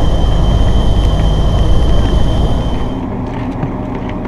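Tour coach driving on a dirt road, heard from inside the cabin: a deep rumble of engine and tyres with a steady high whine. About three seconds in it drops suddenly to a quieter, steady low hum with scattered light clicks.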